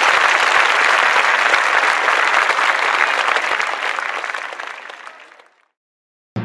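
Crowd applause, dense clapping that fades out about five seconds in.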